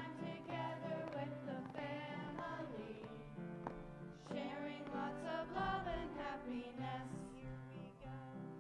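Voices singing a Christmas song over steady instrumental accompaniment.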